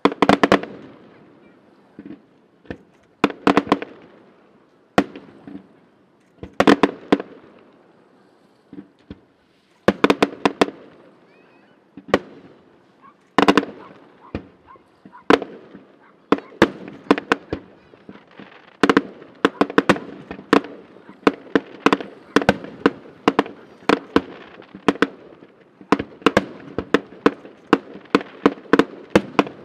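Fireworks display: aerial shells bursting with sharp bangs, at first in separate clusters a few seconds apart, then from about halfway through as a rapid, almost continuous volley.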